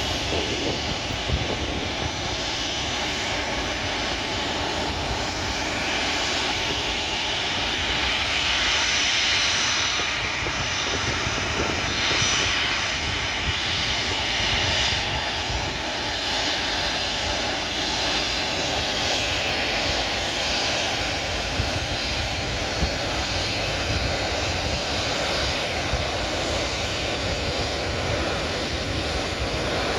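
Boeing 737-300F's CFM56-3 turbofan engines running at low taxi power, a steady jet noise that grows a little stronger around ten seconds in and then eases back.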